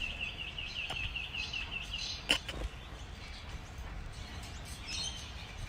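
A rapid, high-pitched chirping trill, about six notes a second, for roughly the first two seconds, followed by a single sharp click.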